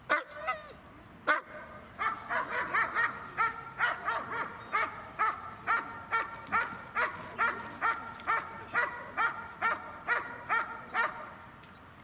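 German shepherd barking repeatedly while guarding a bag in an obedience trial: two sharp single barks at first, then a steady run of barks, two to three a second, for about nine seconds, stopping shortly before the end.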